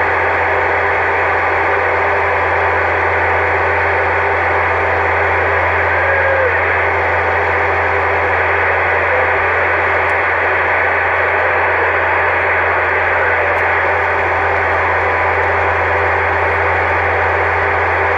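Magnum CB radio's speaker putting out a steady hiss with a low hum underneath and no voice: an open, unmodulated carrier holding the channel, with the signal meter held high.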